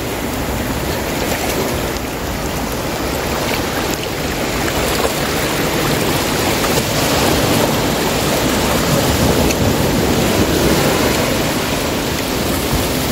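Shallow ocean surf washing in over a sandy beach, a steady rush of water and foam that swells louder in the second half.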